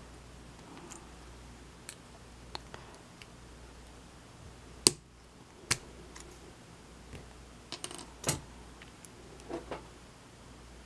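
Scattered small metallic clicks and clinks from a euro cylinder lock and its tools being handled. The loudest is a sharp click about five seconds in, with a few more around eight seconds.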